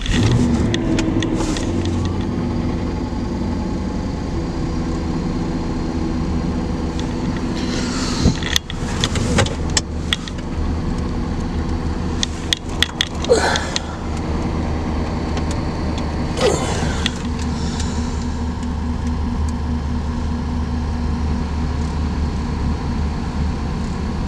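Cadillac's engine idling steadily just after a cold start in freezing weather, left running to warm up. A few short clicks and squeaks come over it around the middle.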